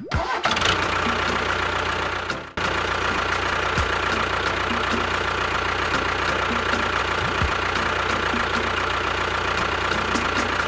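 An engine running steadily with a regular knocking tick, briefly cut off about two and a half seconds in.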